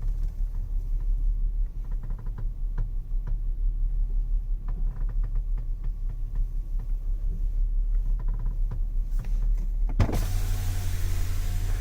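VW Atlas electromechanical power steering creaking as the wheel is turned: a steady low hum with scattered short creaks and clicks. The uploader puts the noise down to too much tension between the steering servo motor and the steering gear housing, the fault covered by VW TSB 48-20-01. About ten seconds in, a louder rushing noise with a deeper hum sets in.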